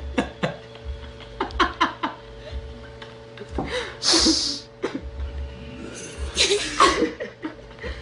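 A girl's voice making short non-speech sounds, with two longer breathy bursts about four and six and a half seconds in, over a faint steady hum.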